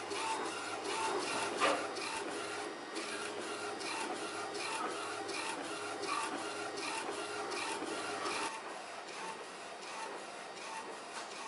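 A4 UV flatbed printer printing a jigsaw puzzle, its print-head carriage shuttling back and forth in a steady mechanical run with a pattern repeating about twice a second. It gets a little quieter for the last few seconds.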